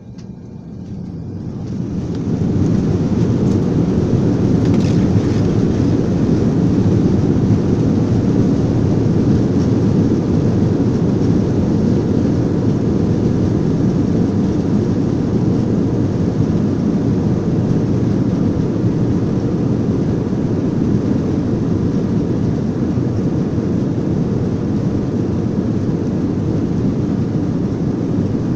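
Airliner's jet engines spooling up to takeoff power and the takeoff roll, heard from inside the cabin: the sound swells over the first two seconds, then holds as a loud, steady deep rumble with a hiss above it.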